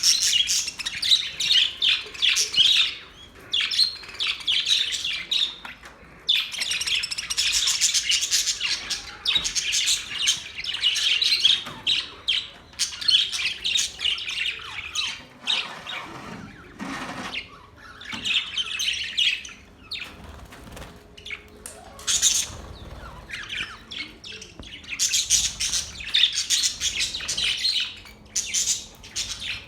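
Several small pet parrots chirping and chattering together: rapid, high twittering calls in bursts of a few seconds, with brief lulls between them.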